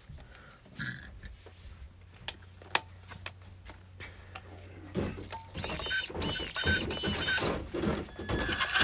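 Clicks and handling as a battery is connected to an RC car. Then, from about five and a half seconds in, the old Traxxas Slash's Titan brushed motor and drivetrain whine in short throttle blips, rising and falling in pitch, and run up louder near the end.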